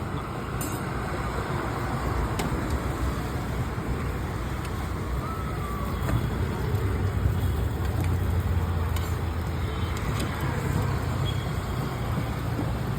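Steady roadside traffic noise from passing vehicles. A heavier low rumble swells for a few seconds around the middle.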